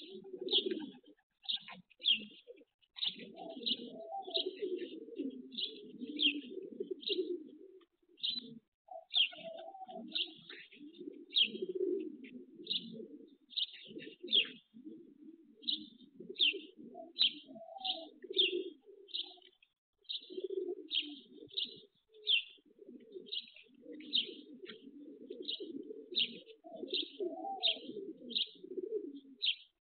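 Domestic racing pigeons cooing in long, wavering stretches with short pauses. A small bird chirps steadily over the top, a little more than once a second.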